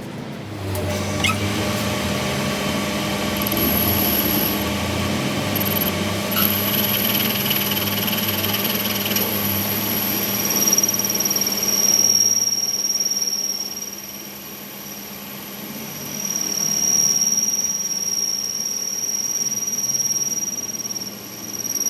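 Workshop metalworking machinery running steadily, with a high-pitched whine and squeal over a low hum; it eases off briefly a little past the middle, then picks up again.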